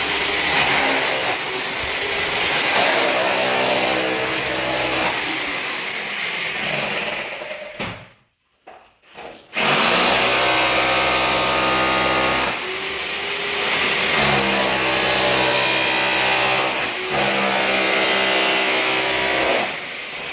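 Electric power tool running under load, its motor pitch wavering. It stops about eight seconds in and starts up again a second and a half later.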